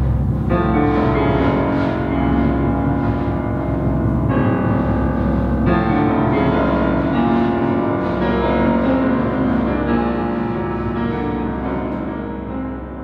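Piano music: sustained, layered chords over a steady low drone, growing softer near the end.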